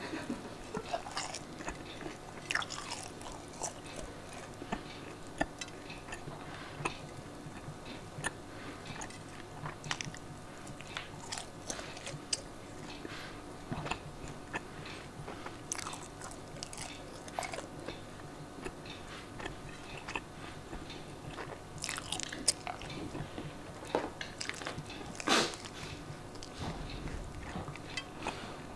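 Chewing and biting: irregular clicks and crunches, several every second, over a faint steady hum, with one sharper crack about 25 seconds in.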